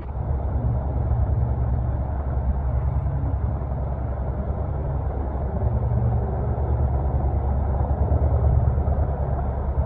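Helicopter rotor and engine running close by, a steady heavy low rumble with a rapid flutter from the blades.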